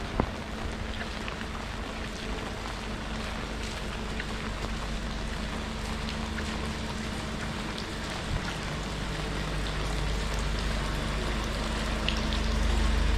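Steady rain falling, with scattered drops ticking, and a single sharp knock just after the start. A low engine rumble from a vehicle builds and grows louder near the end.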